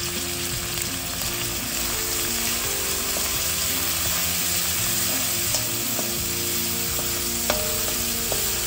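Chopped onions and cauliflower sizzling over a high flame in a stainless steel wok as a perforated steel spoon stirs them, scraping the pan. The spoon clicks sharply against the steel about five and a half and seven and a half seconds in.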